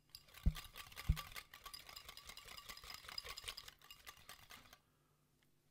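Wire balloon whisk beating thick mayonnaise in a ceramic bowl: a fast run of light clicking ticks as the wires strike the bowl, with two soft low knocks near the start, stopping about five seconds in.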